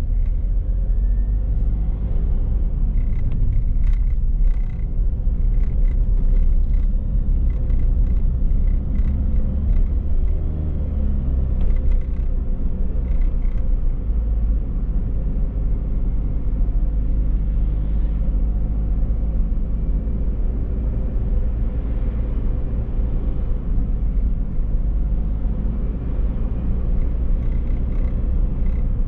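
Steady low rumble of a car on the move, engine and road noise together. In the first half a run of light, regular ticks comes in, about two a second, for roughly ten seconds.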